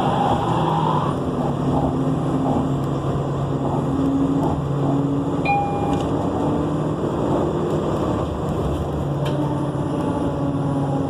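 Nova Bus LFSA articulated bus in motion: the engine and drivetrain run steadily with pitch stepping up and down, and a short high squeal about five and a half seconds in.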